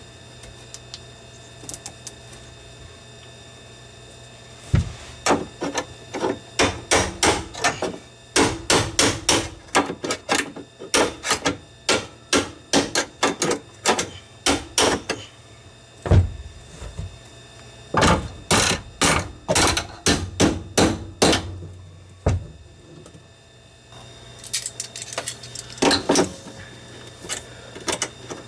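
Hammer striking metal in quick runs of blows, about two or three a second, with short pauses between the runs.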